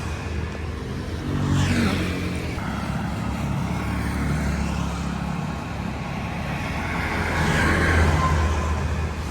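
Street traffic: motor vehicles running by with a steady low hum, two of them passing close, about two seconds in and again near the end.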